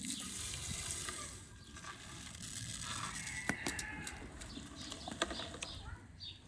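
A stream of coarse salt poured into a pot of water gives a steady grainy hiss for about the first two seconds. After that the seasoned water bubbles, with scattered sharp clicks.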